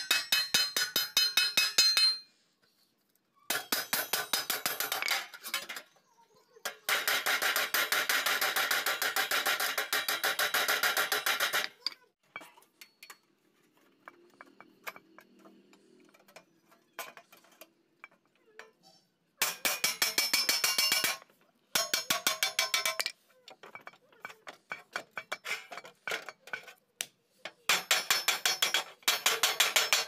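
Wooden mallet rapidly beating galvanized steel sheet over an angle-iron edge to fold it. The strikes are fast and ringing, coming in several bursts of a few seconds each with short pauses between.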